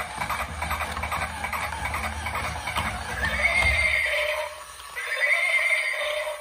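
Recorded horse sound effect: a clatter of hoofbeats, then two long neighs a little under a second apart.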